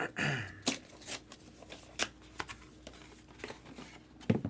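Trading-card box being handled and pulled open against its magnetic closure: a string of irregular sharp clicks, snaps and rustles of cardboard and cards.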